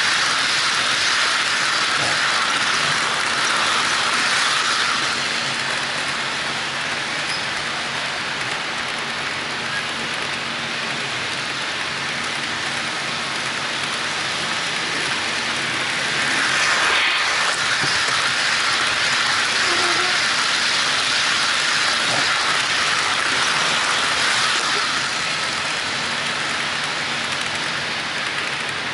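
HO-scale model trains rolling on sectional track: a steady hiss of wheels on rail with electric motor whine, louder at the start as cars pass close and swelling again about halfway through.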